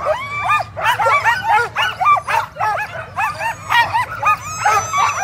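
A sled dog team barking and yelping together, many short high calls overlapping without a break. This is the excited clamour of dogs held at the start line, eager to run.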